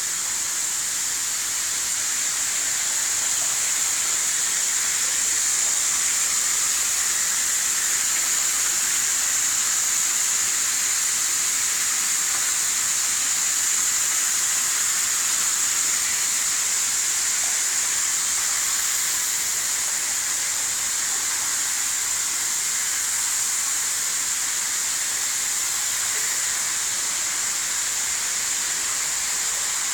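Water spraying from a wall spigot onto a flooded floor, a steady hiss and splash.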